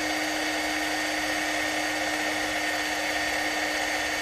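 Cordless drill running steadily with a 2.1 mm twist bit, boring out a pilot hole in a telescope secondary-mirror holder plate ahead of M3 tapping. The motor gives an even whine with a constant pitch, with no change in speed throughout.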